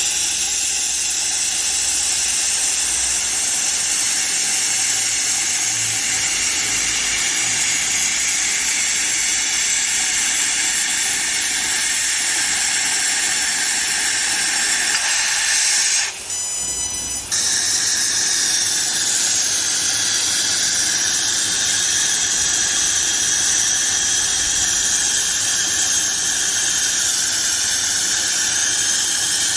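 Steady, loud hiss of a high-power fiber laser cutting steel plate, the assist-gas jet blowing through the cut. It breaks off briefly about halfway through, then carries on.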